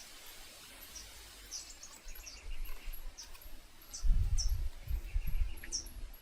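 Small birds chirping in short, high, falling notes over a steady hiss, with a low rumble coming in about four seconds in.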